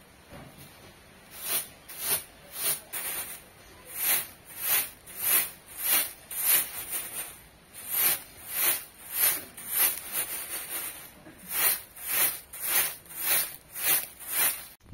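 Dry grains being winnowed on a round woven bamboo tray: a rhythmic rattling swish each time the tray is tossed, about one and a half to two tosses a second, with a brief pause just after the middle.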